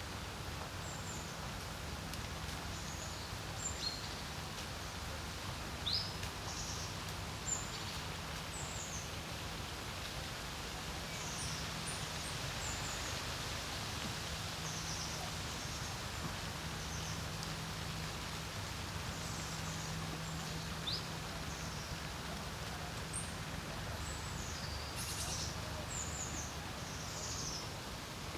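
Wind on a lake shore, a steady low rumble, with small birds giving short high chirps and calls scattered throughout, a few sharper ones standing out about six and seven seconds in.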